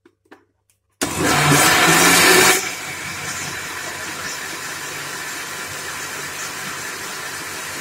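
Electric blender switching on about a second in and running, blending a thin semolina batter for baghrir. It is loudest for the first second and a half, then settles into a steady, lower running noise.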